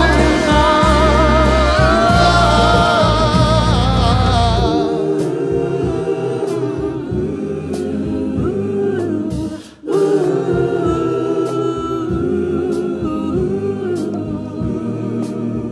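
Soul-gospel song: a full band with strings and lead singers holding a note with vibrato. About five seconds in the band drops out and a gospel choir sings on in harmony, with a brief break near the middle.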